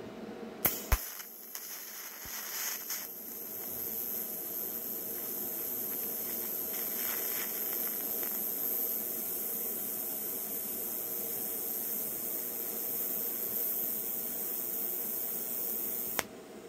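TIG welding arc on a snowblower drive sprocket: it strikes with a sharp click a little under a second in, then holds a steady hiss until it cuts off just before the end.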